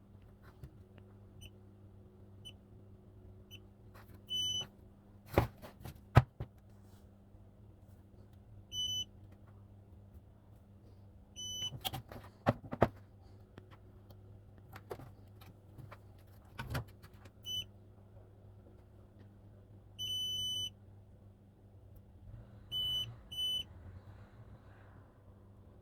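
Multimeter continuity beeper sounding in short, same-pitched beeps at irregular intervals, about eight of them with one held a little longer about two thirds through, each beep meaning the probes have found a connection between two points on the circuit board. Sharp clicks and knocks of the probes and handling fall between the beeps, over a faint steady hum.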